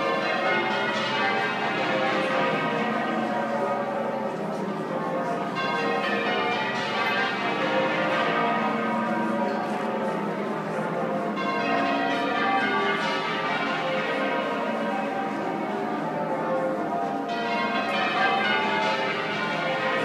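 The twelve half-muffled bells of St Paul's Cathedral (Taylor of Loughborough, 1878; tenor about 62 cwt in B flat) change ringing, a continuous stream of overlapping strokes. Brighter open rows alternate with duller muffled rows about every three seconds.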